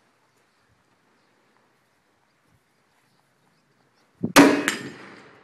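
One loud rifle shot from an M1A firing 7.62 NATO, about four seconds in, trailing off slowly, followed about a third of a second later by a second sharp crack: the bullet ringing the steel plate at 100 yards.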